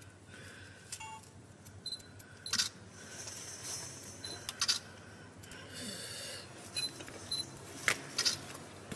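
Light scrapes and sharp little clicks of a hand spatula spreading and smoothing metal repair putty over a patched joint on a finned pipe, coming irregularly, with a steady faint hum underneath.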